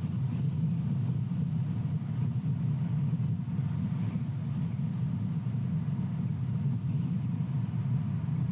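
Steady low rumble of wind buffeting an outdoor nest camera's microphone, with no separate events.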